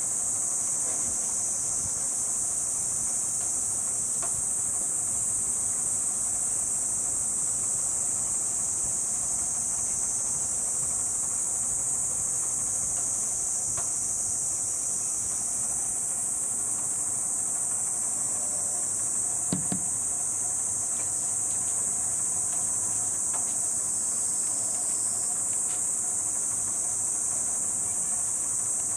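A steady, high insect drone runs throughout without a break. A single short thump comes about two-thirds of the way through.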